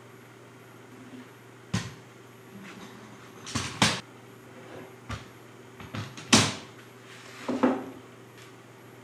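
Steel bar clamps being adjusted and tightened on a table glue-up: a string of sharp metal clacks and knocks, about seven in all, the loudest about six seconds in.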